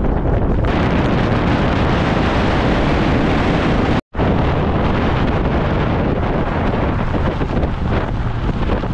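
Wind buffeting the microphone of a camera held out of the window of a moving Chevrolet S10 pickup, loud and steady over the truck's road noise. It cuts out for an instant about four seconds in.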